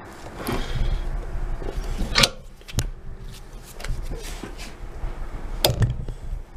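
Clicks and knocks of metal tool parts being handled and worked at while taking apart a Milwaukee cordless Sawzall's gear case. The sharpest clack comes about two seconds in, with two more close together near the end.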